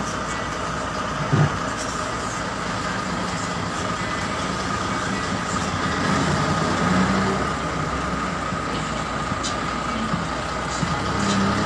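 Heavy Scania lowbed truck's diesel engine running steadily under a constant whine. A short, louder low thud comes about a second and a half in.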